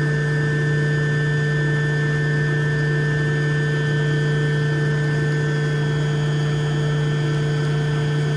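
Building's main circulating water pump and its electric motor running, a loud steady hum with a strong low tone and fainter higher tones.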